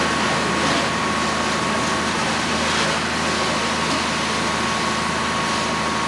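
Steady rushing hiss of a fire hose spraying water onto a burning car and raising steam, over the steady drone of the fire engine's pump engine.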